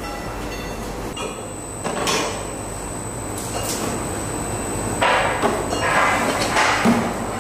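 Automatic tube loader of a metal tube laser cutting machine running: a steady mechanical hum with a thin high whine from about a second in. Square steel tubes rattle and scrape as they ride the straps, with a louder spell about two-thirds of the way through and a sharp metal clank near the end.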